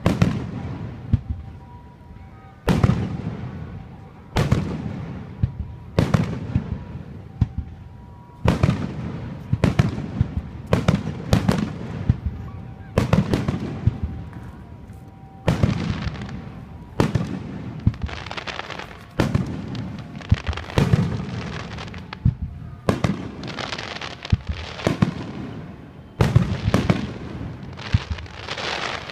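Fireworks shells bursting in a long series of sharp booms, each trailing off into a fading rumble. The booms come a couple of seconds apart at first, then in quicker clusters of several bangs from about a third of the way in.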